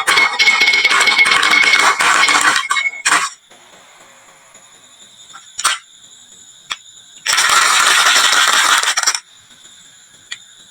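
Marbles rolling and clattering down a wooden marble run, in two rattling runs with a few single clicks of marbles knocking in between.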